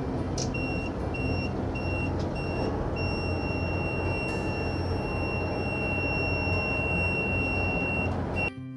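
Alarm-panel buzzer in a tugboat's engine control room sounding over steady, loud engine-room machinery noise: four short high beeps, then one steady tone from about three seconds in that cuts off near the end.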